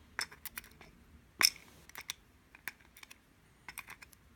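Small sharp metal clicks and taps from handling the pins, springs and parts of a disassembled key-in-knob lock core, irregular, with one louder click about a second and a half in.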